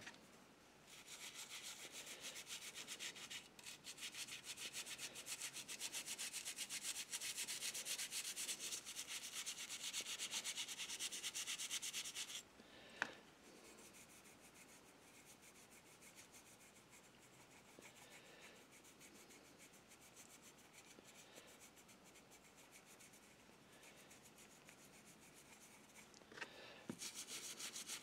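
A small brush scrubbing a tarnished brass model locomotive shell with rapid back-and-forth strokes, working a cleanser paste in to lift the tarnish. The scrubbing stops about halfway through, with a single click, leaves only faint rubbing, and starts again near the end.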